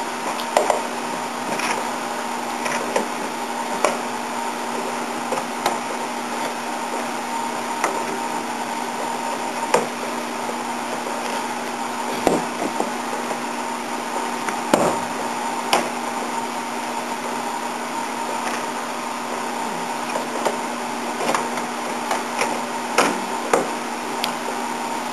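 A steady electric motor hum runs throughout, with irregular short knocks and scrapes of hand work on the Beetle's sheet-metal body, prying out old sound-deadening material.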